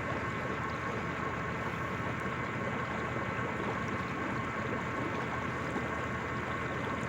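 A boat motor running at a steady speed: a constant hum with a whine that holds its pitch throughout.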